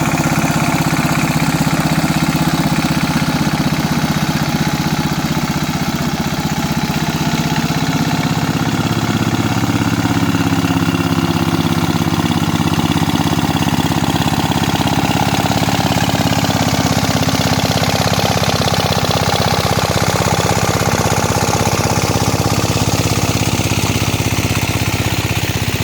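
Mini tractor engine running steadily while harrowing a flooded rice field, its pitch shifting slightly partway through.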